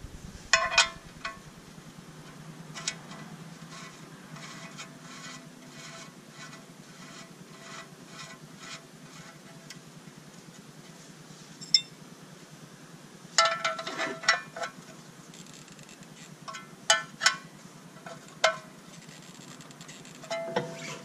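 Light metallic clicks and clinks of the oil drain plug and its sealing washer being threaded by hand into a Kubota BX24 tractor's oil pan, then snugged with a ratchet wrench, coming in scattered clusters.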